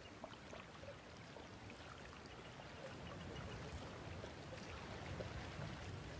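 Faint, steady background hiss of outdoor ambience that grows slightly louder, with no distinct events.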